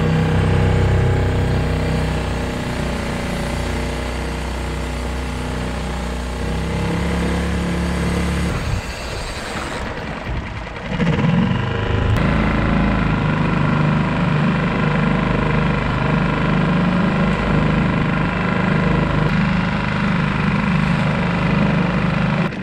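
Small outboard motor on a solo skiff running steadily under way at trolling speed. A little before halfway its note drops and thins for about two seconds, then it picks back up and runs on slightly louder.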